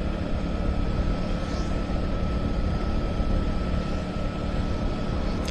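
Motorcycle running at a steady cruising speed, its engine hum under a continuous rush of wind and road noise.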